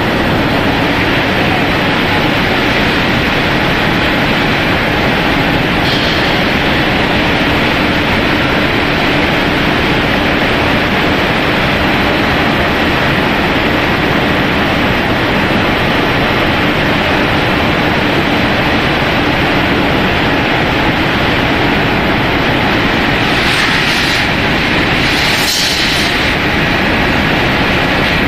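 Twin-screw food extruder production line running: a loud, steady machinery noise with a faint hum, broken by short hisses about six seconds in and twice near the end.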